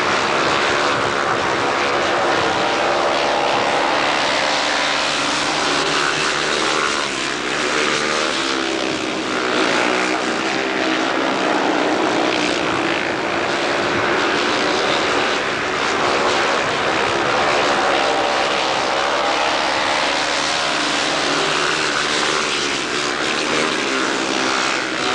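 Speedway bikes' 500 cc single-cylinder methanol engines racing round the track at full throttle. The engine pitch rises and falls continuously as the riders work the throttle.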